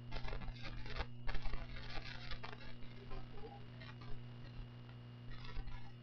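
Irregular scuffs and rustles from a mime moving about a wooden stage and handling a paper prop, thickest in the first two and a half seconds and again near the end, over a steady electrical hum.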